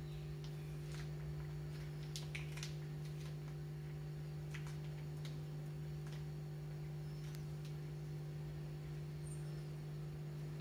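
A steady low electrical hum, with a few faint clicks and crinkles from a plastic packet of ghee being squeezed into a steel pan.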